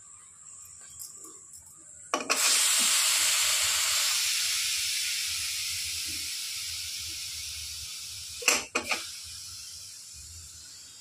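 Steam hissing out of an aluminium pressure cooker as its whistle weight is lifted with a wooden spoon to let the pressure out after cooking. The loud hiss starts suddenly about two seconds in and slowly fades, with two short knocks near the end.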